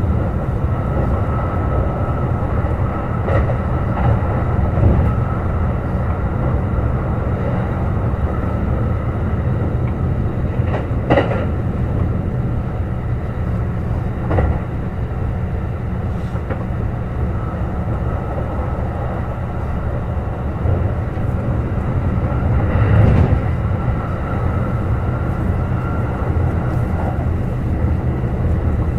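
Kintetsu 21000 series Urban Liner Plus express train running at speed, a steady low rumble with a few sharp knocks from the wheels passing rail joints or points.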